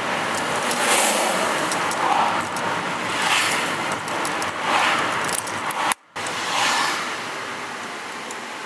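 Road and traffic noise heard from inside a moving car in town traffic, swelling several times as oncoming vehicles pass. The sound cuts out for a moment about six seconds in.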